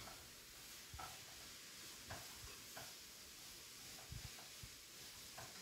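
Near silence: room tone with a faint hiss and a few faint soft ticks and a low thump.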